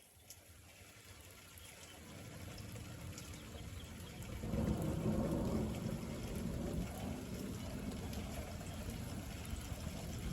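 Thunder from a nearby lightning flash, a low rumble that builds about two seconds in, is loudest around the middle and keeps rolling on, over the steady hiss of rain.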